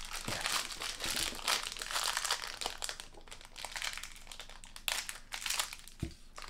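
Toy blind-box packaging crinkling and rustling as it is handled and opened by hand, a run of quick crackles that thins out midway and picks up again briefly near the end.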